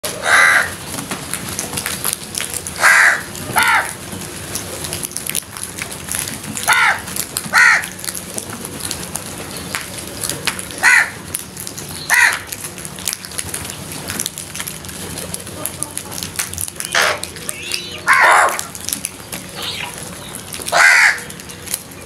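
A flock of house crows cawing: about ten harsh caws spread out a few seconds apart, some coming in quick pairs.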